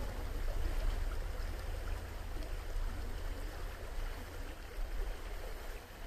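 Steady rush of a shallow mountain stream running over a gravel riffle, with a low rumble underneath.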